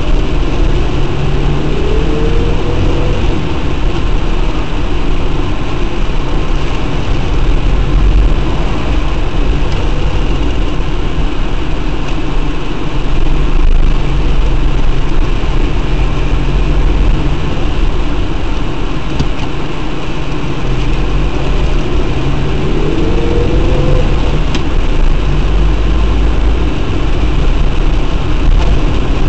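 Car engine and road noise heard from inside the cabin while driving. The engine note rises as the car accelerates, about two seconds in and again about twenty-two seconds in.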